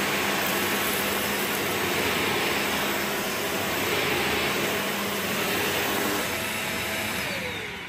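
Hoover HL4 Anti Twist Pets upright vacuum cleaner running steadily while being pushed over carpet, a steady motor whine under the rush of suction. Near the end the whine falls in pitch and the sound dies down as the motor winds down.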